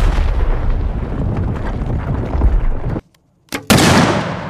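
A deep, rumbling explosion sound effect that cuts off suddenly about three seconds in. After a moment's silence, a short snap is followed by the loud blast of three Firebird impact-activated exploding targets detonating together, which dies away in a long rumble.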